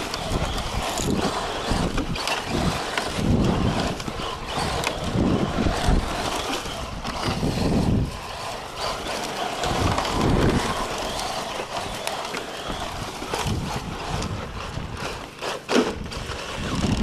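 Radio-controlled rally car driving over dirt and gravel, a noisy rolling rattle with low rumbles that swell and fade every second or two, and a few sharp clicks near the end.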